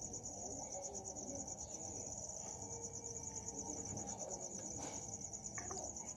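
Crickets chirping in a steady, fast trill. A soft knock comes near the end as a small steel bowl is pressed down to cut rounds from rolled dough.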